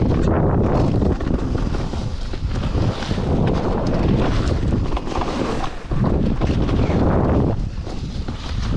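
Wind buffeting the microphone of a camera carried by a mountain biker on a fast descent, with many short knocks and rattles from the bike on rough ground.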